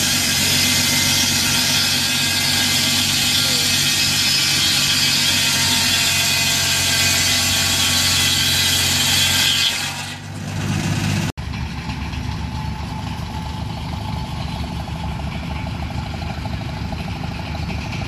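36-inch circular sawmill blade cutting through a log: a loud, steady hissing rasp over the belt-driving Farmall tractor's engine. About ten seconds in the cut ends and the engine note rises as the load comes off; after that the Farmall's engine runs steadily, turning the sawmill's flat belt.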